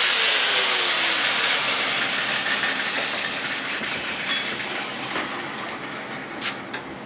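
Angle grinder winding down after grinding a steel muffler flange: its whine drops in pitch and its hiss fades over several seconds. A few sharp clicks come near the end.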